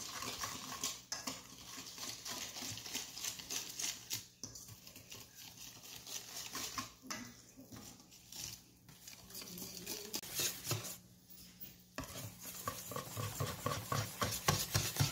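Wire whisk stirring runny chocolate cake batter in a stainless steel bowl: quick metal clicks and scrapes against the bowl, denser and louder in the last few seconds.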